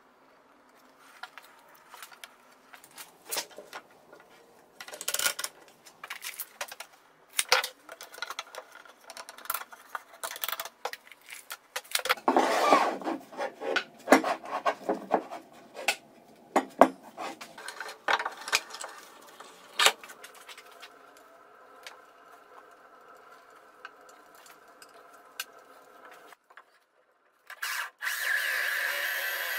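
Plywood pieces and hand tools knocked, tapped and rubbed on a workbench, an irregular run of sharp clicks and knocks. Near the end an electric drill starts and runs steadily, boring into plywood end grain with a Forstner bit in a drill guide.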